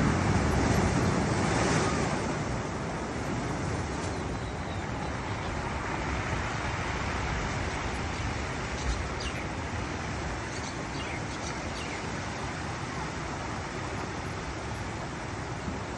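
Surf washing into a rocky cove: a steady rush of waves on the rocks, a little louder in the first couple of seconds.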